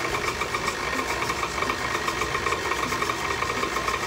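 Electric mixer running steadily at one speed, a fast even whirring, beating butter and sugar into a clumpy cookie-dough base.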